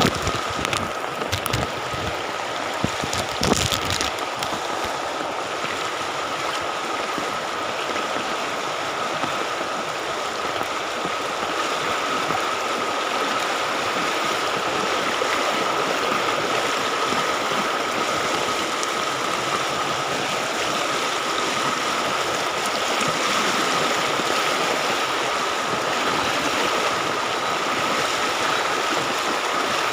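Fast-flowing floodwater of a swollen creek rushing steadily past, with a few knocks from handling in the first few seconds.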